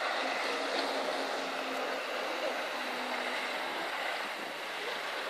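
Jet ski engine running at speed with a steady droning hum, under a constant rushing noise of sea and wind.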